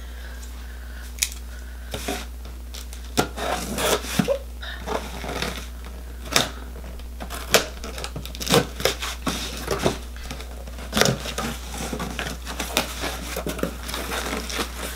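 A cardboard shipping box being opened by hand: irregular tearing, crinkling and rustling of tape and packaging, with scattered sharp clicks and knocks.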